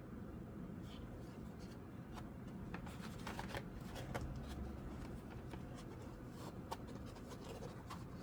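Packaged diecast toy cars being handled: faint scattered clicks and crinkles of card and plastic blister packaging, busiest around three to four seconds in, over a low steady hum.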